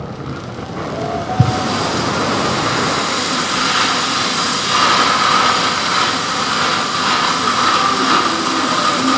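Stage spark fountains hissing, a steady rushing noise that builds up over the first second or so, with a single sharp thump about one and a half seconds in.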